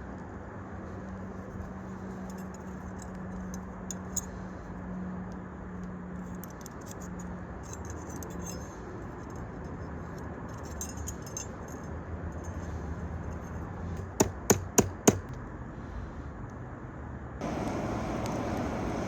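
Steady rushing of a hair-dryer-blown scrap-wood forge with light metallic clinks, then four quick hammer strikes on metal about three-quarters through; the rushing gets suddenly louder near the end.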